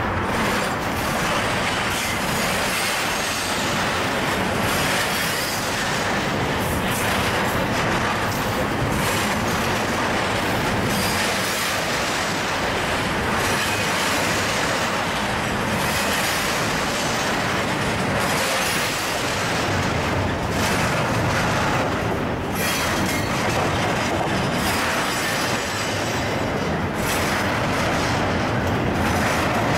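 An intermodal freight train's cars, loaded with highway trailers and containers, rolling steadily past close by: a continuous rush and clatter of steel wheels on rail that never lets up.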